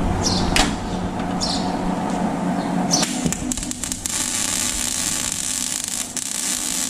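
MIG welding arc from a Miller Millermatic 190 welder running 0.9 mm wire: a few brief sputters, then from about three seconds in a steady crackling sizzle as the bead is laid.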